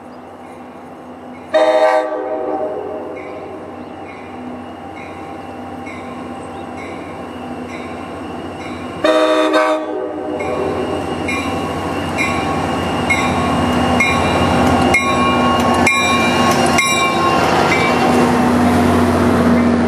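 NJ Transit EMD GP40-series diesel locomotive sounding two short horn blasts, about seven seconds apart, while a bell rings steadily about one and a half strikes a second. From the second blast on, the diesel engine and the wheels grow louder as the locomotive draws in and passes close, with a few sharp clicks over the rails near the end.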